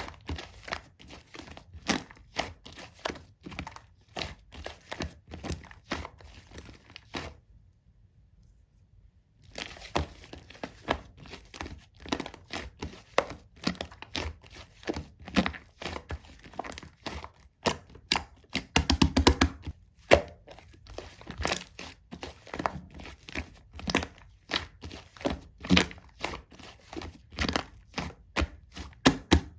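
Clear, thick slime being squeezed and poked by hand, making repeated sticky clicks and pops about one to two a second. The sounds stop for about two seconds a quarter of the way in, and a quick run of crackles comes just past the middle.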